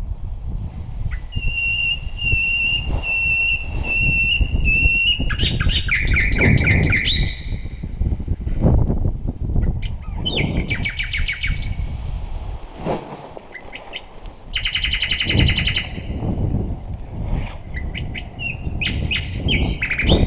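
Gusty wind buffeting the microphone on an exposed hilltop, with high sounds over it. First about six identical high beeps roughly half a second apart, then quick falling runs of notes and buzzy rapid trills.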